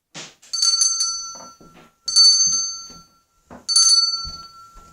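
A bell-like metallic ring struck three times, about one and a half seconds apart, each strike ringing out and fading.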